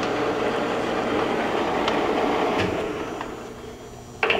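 Chuck drive of a 1975 Blanchard 11-20 rotary surface grinder turning the chuck at its 41 RPM speed: a steady mechanical running noise from the drive gearing. The noise dies down about three seconds in, and a short sharp click comes just before the end.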